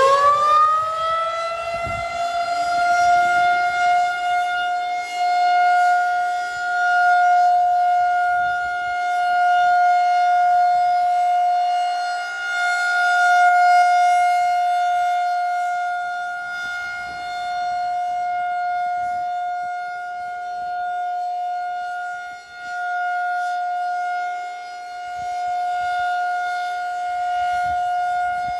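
Federal Signal 2001-SRN "Roundback" outdoor warning siren winding up to full speed in the first couple of seconds, then holding one steady tone: the Alert signal of a siren test. Its loudness swells and fades slowly as the rotating siren head sweeps past.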